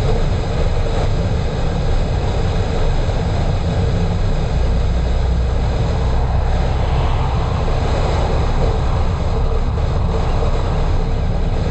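A car driving at a steady road speed: a continuous drone of engine and tyre noise, with the low rumble swelling for a few seconds in the middle.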